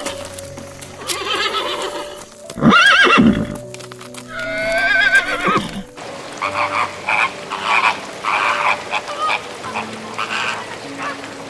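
A horse whinnying twice: two long calls that waver in pitch. These are followed by a run of short, rapid animal calls.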